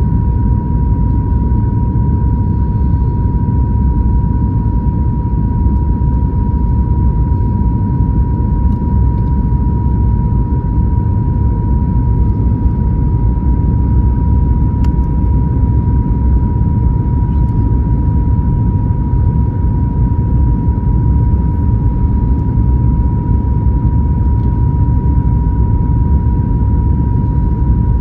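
Steady low rumble of airflow and CFM LEAP-1B engines inside the cabin of a Boeing 737 MAX 9 on approach with its flaps extended. A steady high tone runs through it.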